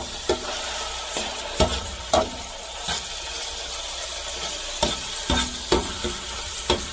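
Chunks of chicken searing in hot oil in a metal pan, sizzling steadily, while a wire skimmer stirs and pushes them around, its wire clicking and scraping against the pan bottom about seven times.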